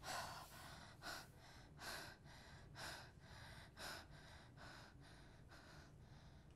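A woman breathing in quiet, ragged gasps, about one breath a second, the first the strongest and the rest growing fainter.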